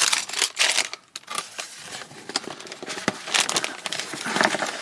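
Plastic bags of building-brick parts crinkling and rustling as they are handled, in irregular crackly rustles that are loudest at the start and again near the end.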